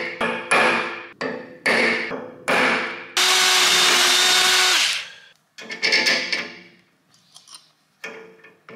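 Several sharp metal strikes on a steel plate, each ringing out, then a cordless drill boring into the rusty steel mounting plate for about two seconds with a steady whine before stopping suddenly. Smaller metal clinks follow as parts are handled.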